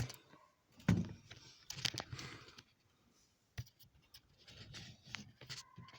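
Scattered handling noises: a knock about a second in, then light rustling, clicks and taps. A faint steady tone comes in near the end.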